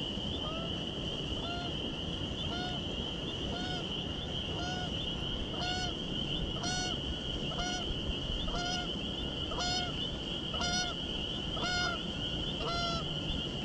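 Geese honking, a regular series of about one honk a second, over a steady high-pitched hum.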